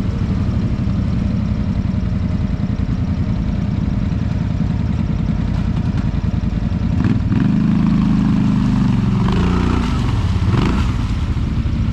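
ATV engine running steadily. It revs up louder about seven seconds in, then drops and climbs again in pitch near the end.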